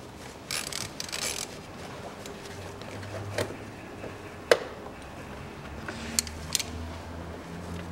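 Hose clamp on a plastic air intake duct being loosened with a hand driver: faint scraping and a few sharp clicks, the loudest about four and a half seconds in, over a low steady hum.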